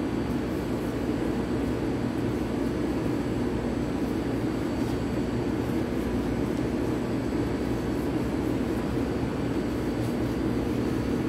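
Steady, unchanging hum of commercial kitchen machinery, such as the ventilation, with no distinct knife or carving sounds.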